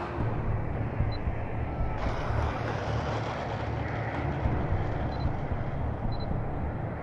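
Rushing noise of a Freewing F-16 model jet's electric ducted fan as it comes down the runway, growing louder and brighter about two seconds in, over a low rumble of wind on the microphone.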